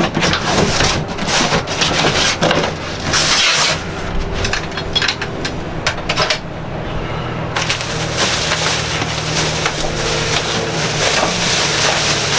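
Cardboard packaging being torn and pulled apart by hand while unboxing a stove, a dense crackling and ripping through the first half, then lighter handling noise over a steady hum.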